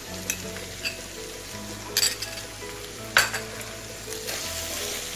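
Ivy gourd and onion sizzling in hot oil in a steel wok, with a wooden spatula knocking against the pan several times as chilli powder is stirred in; the sizzle grows louder near the end.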